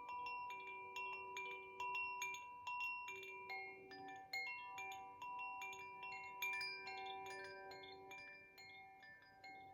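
Koshi chime in the Ignis (fire) tuning being played by hand, its clapper striking the tuned rods in quick, irregular strikes. Each note rings on and overlaps the others in a sustained cluster of tones.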